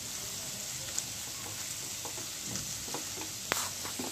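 Onions and tomatoes sizzling in oil in a kadai as a spatula stirs them, with scrapes and short clicks of the spatula against the pan, the sharpest about three and a half seconds in.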